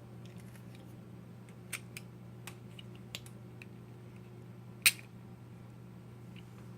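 Small metal clicks from a door lock's inner parts being slid and worked by hand, a few light ticks and then one sharper click about five seconds in, over a steady low hum.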